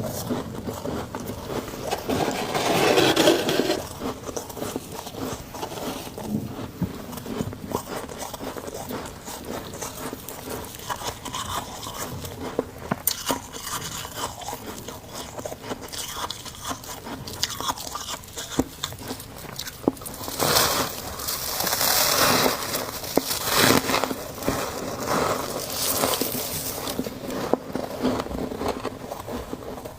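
Close-up biting and chewing of chunks of humidifier-grown freezer frost: a continuous run of crisp crunches, with louder bouts of biting a couple of seconds in and again from about two-thirds of the way through.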